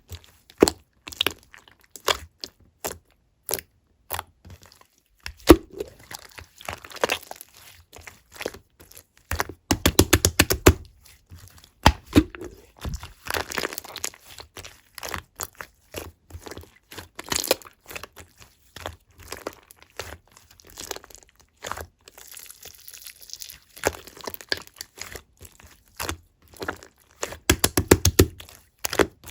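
Black marbled slime being squished and pressed by hand: a string of sticky clicks and air-bubble pops, with two bursts of rapid popping, about ten seconds in and near the end.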